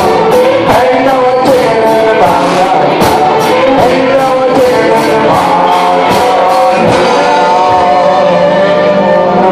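Live rock band playing: drum kit with regular cymbal strokes, acoustic guitar and keyboard, with a voice singing. The cymbal strokes stop about seven seconds in while the chord rings on.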